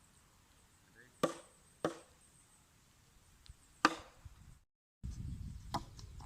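Three sharp chopping strikes, the last the loudest. After a brief cut, a low rumbling noise follows with a small click.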